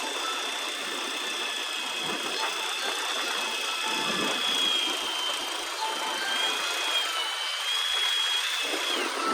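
Electric fishing reel motor winding in line: a steady high whine that sags briefly in pitch about seven seconds in and stops just before the end.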